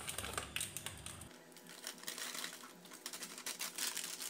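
Plastic instant-noodle seasoning sachets being handled and laid on the table: a quick, irregular run of small crinkling clicks.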